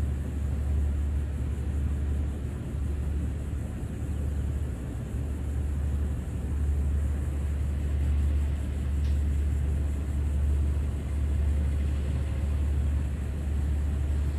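Low, steady rumble of an idling vehicle engine, swelling and easing slightly.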